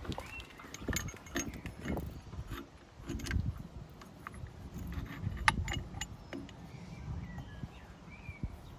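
Scattered metallic clinks and knocks of hand tools and brake parts being handled, over a low rumble.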